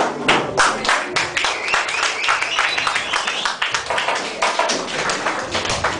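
Audience applauding, with many separate claps, and a long wavering whistle rising over the clapping from about a second in until shortly before four seconds.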